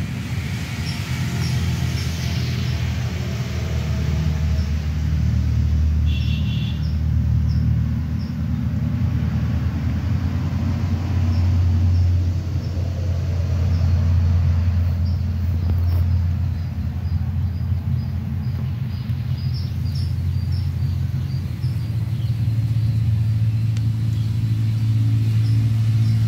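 A low, steady engine rumble that shifts slowly in pitch, with faint short high chirps scattered above it.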